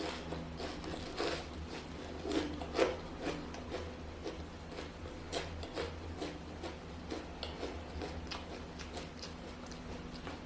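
Close-up chewing of a crispy Huangshan shaobing (sesame flatbread filled with preserved vegetables): a run of small irregular crunches and mouth clicks, with a faint low hum underneath.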